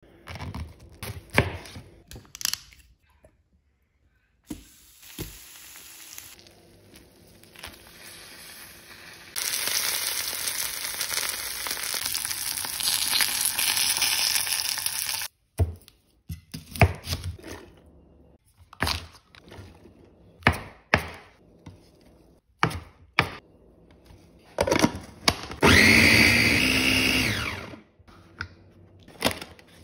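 Scattered knocks and taps, then about six seconds of steady sizzling from cabbage wedges charring in a hot pan, which cuts off suddenly. More scattered knocks follow, and near the end a Breville Mini Wizz food processor runs for about two seconds, its motor pitch falling as it stops.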